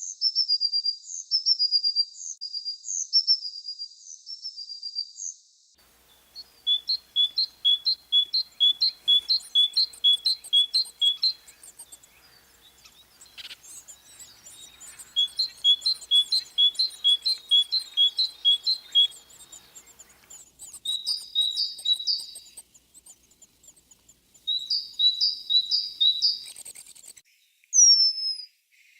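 Songbirds singing, several spring recordings joined one after another. Series of quick, repeated two-note phrases are broken by short pauses, and near the end come a few falling whistled notes.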